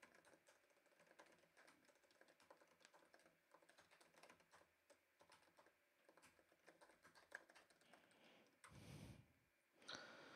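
Faint typing on a computer keyboard: a quick, uneven run of key clicks. A short breath comes near the end.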